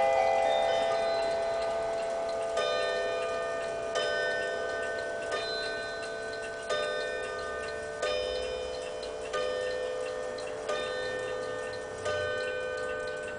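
Chiming clock striking on bells: a slow, even series of struck notes, one about every second and a third, eight in all, each ringing on and fading slowly.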